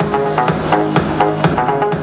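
Electronic dance music with a steady beat, about four sharp drum hits a second over sustained synth chords.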